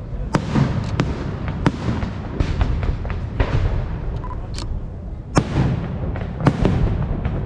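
Aerial fireworks exploding: a continuous low rumble of shell bursts, broken by sharp reports that come irregularly, several times a second at times, with a few loud cracks standing out.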